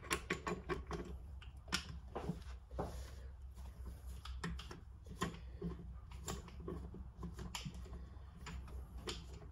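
Ratchet wrench clicking in irregular runs of short, sharp clicks as it works the retaining bolt out of the bottom of a motorcycle fork leg.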